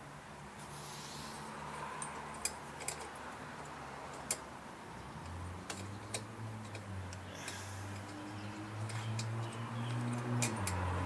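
Scattered sharp clicks and taps of screws and small tools being handled while the carburetor is refitted on a lawn mower's Kohler engine. A low steady hum comes in about halfway through and grows louder near the end.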